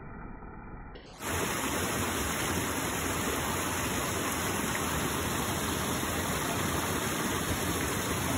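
Muddy creek floodwater pouring over a small rock-ledge waterfall in a steady rush. For about the first second it is muffled and dull, like slowed-down slow-motion audio, then the full, louder rush cuts in abruptly.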